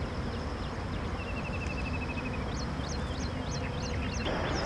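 Birds calling: a fast trill of rapidly repeated notes, then a run of quick, sharply rising whistled notes. Under them is a steady rushing background that grows louder near the end.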